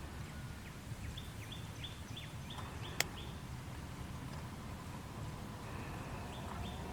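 A bird calling a quick series of about seven short, falling high notes, then two more near the end, over a steady low rumble. A single sharp click about three seconds in.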